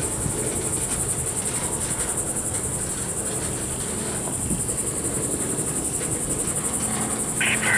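Loaded freight cars of a long train rolling slowly past on their wheels, a steady low rumble, under a shrill, evenly pulsing insect chorus. A brief high squeal comes near the end.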